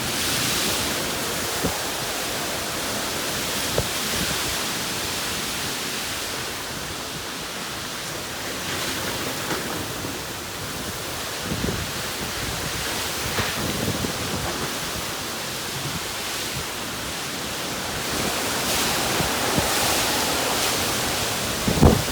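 Steady rush of severe-storm wind and rain, with gusts buffeting the microphone and a few short thumps, the strongest near the end.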